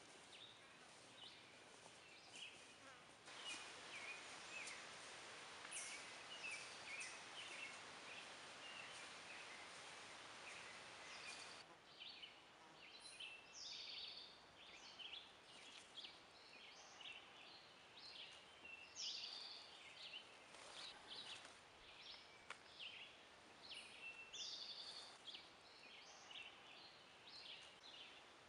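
Faint woodland ambience: songbirds singing and calling in short chirping phrases, over a soft steady hiss that stops suddenly about twelve seconds in.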